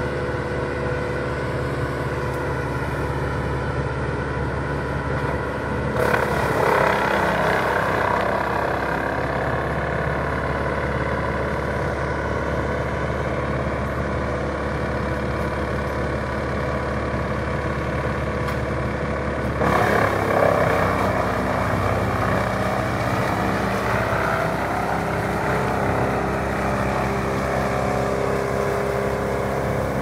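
Bandit Model 1890 woodchipper, an engine of about 200 hp, running steadily under throttle, with the rough, louder noise of branches being chipped rising suddenly about six seconds in and again about twenty seconds in.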